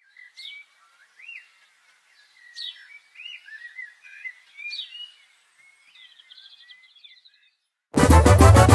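Birds chirping and calling in short rising and falling phrases. About eight seconds in, a brass banda breaks in loudly with low tuba notes and a driving drum beat.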